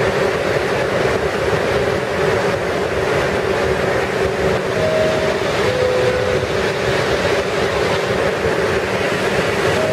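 New York subway shuttle train standing at the platform, its equipment giving a loud steady hum and rumble with a constant drone. A two-note falling chime sounds about halfway through and again near the end, the signal that the doors are about to close.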